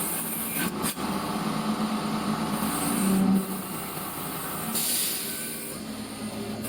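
Industrial CNC wood lathe running: its turning tools cut a spinning wood blank over a steady machine hum, with stretches of louder hiss.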